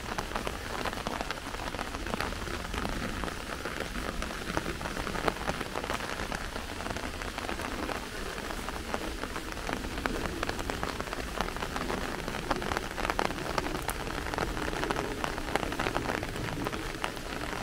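Steady rain falling, with many sharp raindrop ticks close by.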